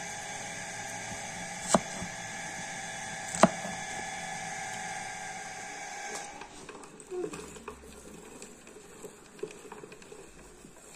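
A steady hum with two sharp knocks, then after about six seconds the hum stops and light clicks and rattles follow as a hand-cranked metal meat grinder is turned to mince onion.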